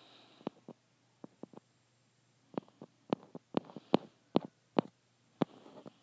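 A run of short, sharp taps and clicks at uneven spacing, fingers flicking across a phone's touchscreen to scroll, coming thickest from about two and a half seconds in until near the end.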